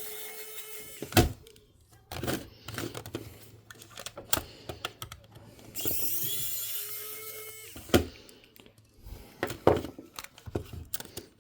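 A small motor whines twice, rising in pitch and then holding steady, each run ending in a sharp click, with scattered clicks and knocks of small parts and tools being handled in between.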